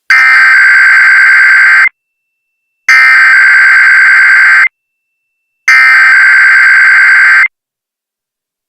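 Emergency Alert System SAME header: three identical bursts of screechy digital data tones, each about two seconds long with about a second of silence between. The header opens an EAS alert or test and carries its coded originator, event and area.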